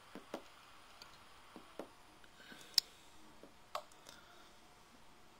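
Faint, scattered clicks and taps, about six in a few seconds, as a word is typed on an iPod Touch's on-screen keyboard. A sharp, high click near the middle is the loudest.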